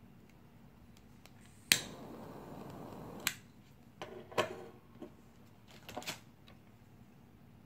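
A refillable metal gas lighter is sparked with a sharp click, its gas hissing steadily for about a second and a half until a second click cuts it off. Several smaller clicks and metal handling knocks follow, the last few as the lighter is set down on the table.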